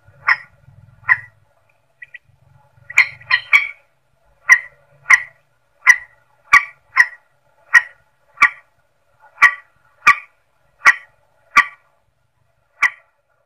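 Recorded lure call of the mandar sawah, a rice-field rail: short, clipped notes repeated at about one to two a second, often in pairs. A faint low hum lies under the first few seconds.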